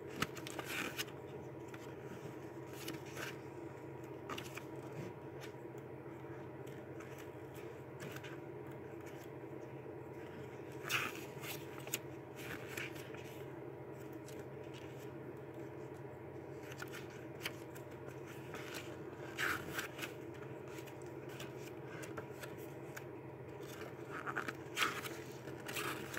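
Paper pages of a booklet being turned and handled: a few short rustles and scrapes, spread out with long gaps between them, over a steady low hum.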